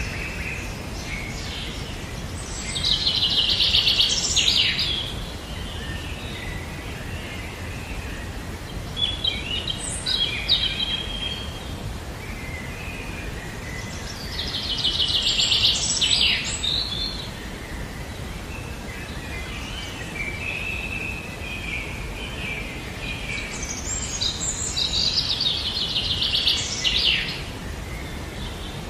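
Birds singing: three similar loud, rapid trilled song phrases, each about two seconds long and roughly ten seconds apart, with softer chirps between them over a steady low background noise.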